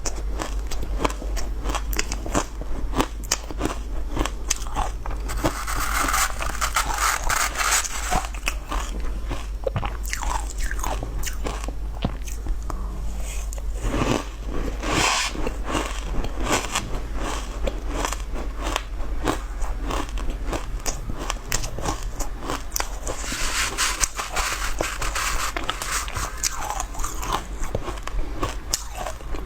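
Close-miked biting and chewing of hard clear ice: a steady run of sharp cracks and crunches as the cubes break between the teeth.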